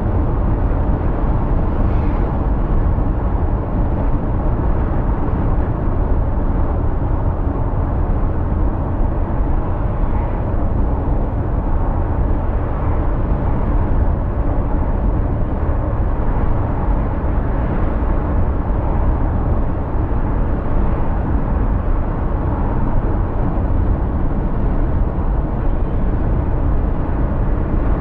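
Steady road noise from a car driving on a highway: a low rumble of tyres and engine that holds even throughout.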